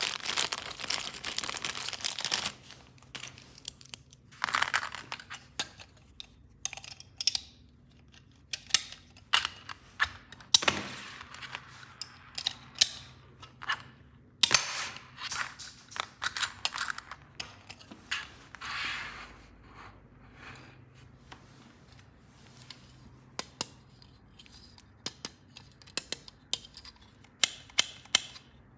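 Plastic packaging and toy pieces being handled: bursts of crinkling and tearing, with many sharp plastic clicks and taps between them.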